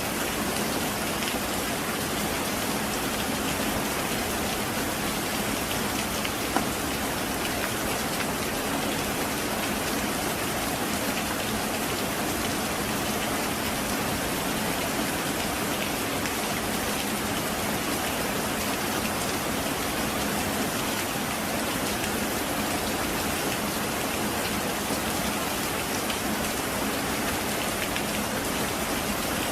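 Heavy rain falling steadily: a dense, even hiss of drops with the odd louder single drop standing out.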